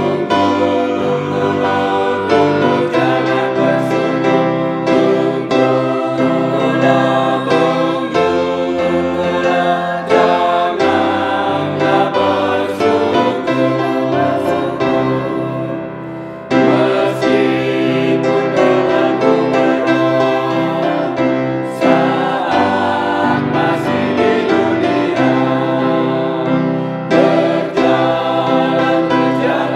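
Small mixed vocal ensemble of men and women singing an Indonesian hymn in harmony, accompanied by a Baldwin grand piano, with a brief break between phrases about halfway through.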